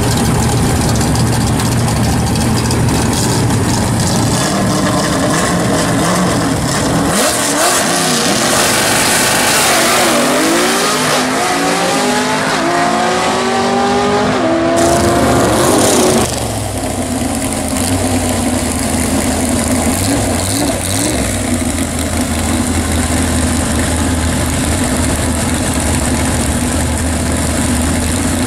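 Fox-body Mustang drag car's 5.0 V8 idling loudly at the starting line, then about seven seconds in it launches and the engine note climbs in pitch several times as it pulls away down the strip. Partway through the sound cuts off suddenly, and another Fox-body Mustang drag car's engine idles at the line.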